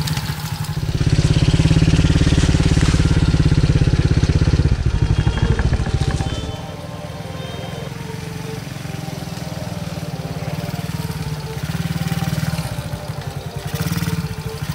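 Taotao DB14 110cc four-stroke single-cylinder dirt bike engine running under throttle, loud for the first several seconds as the bike rides close by, then quieter and rising and falling in level with the throttle.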